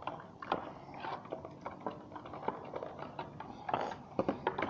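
Detergent powder and water being stirred in a plastic bowl: irregular clicks and scrapes of the stirrer against the sides and bottom of the bowl.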